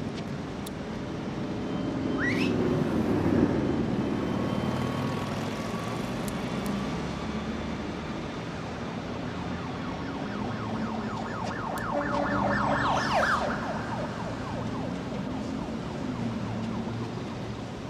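Street traffic noise with a steady rumble, broken by a quick rising tone about two seconds in and a second rising tone with a rapid rattle around thirteen seconds in.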